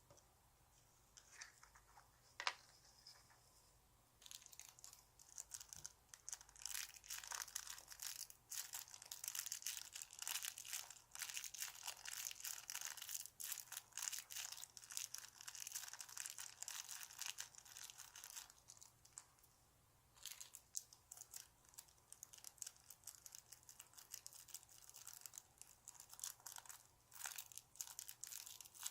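Close-up crinkling and crackling of a soft foam squishy toy being handled and squeezed, in long stretches with a short pause about two-thirds of the way through.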